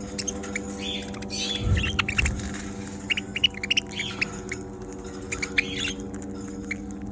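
Budgerigars chirping and chattering in short, quick calls, over a steady low hum, with a couple of soft thumps about two seconds in.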